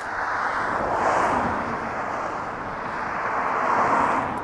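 Cars passing on the road alongside, tyre and engine noise swelling about a second in and again near the end.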